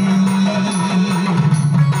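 Sambalpuri folk drum ensemble playing: two-headed barrel drums (dhol) struck in a fast, dense rhythm, over a steady low tone.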